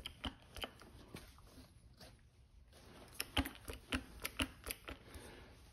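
Porta-power hand hydraulic pump being pumped by its handle to push oil out to a 10-ton ram: faint clicks, about three a second, with a pause of about a second and a half in the middle.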